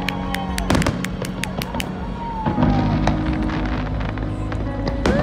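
Aerial fireworks bursting: a quick run of sharp cracks and bangs in the first two seconds, then scattered pops, over music with a steady bass line playing nearby.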